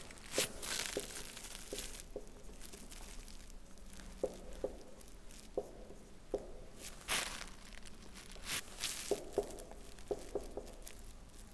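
Marker pen drawing on a whiteboard: faint scratchy strokes and short taps, scattered unevenly, as lines and letters are put down.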